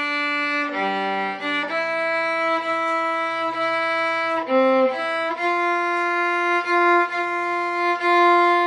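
Solo viola playing a slow melody in long bowed notes: a few quick changes of pitch, one long held note, then the same note bowed four times in a row near the end.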